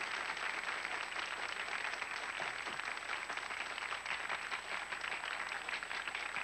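Studio audience applauding: many hands clapping in a dense, even patter.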